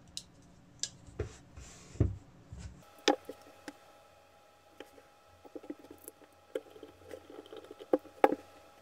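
Sharp clicks and light taps of a folding knife and its small parts being handled during reassembly after the pivot is tightened. A few louder clicks stand out among quicker, lighter ticking in the middle of the stretch.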